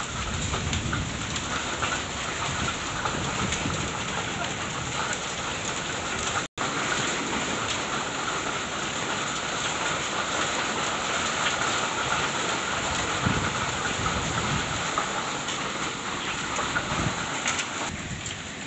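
Thunderstorm rain falling steadily, a dense even hiss of rain on surfaces. The sound cuts out for an instant about six and a half seconds in.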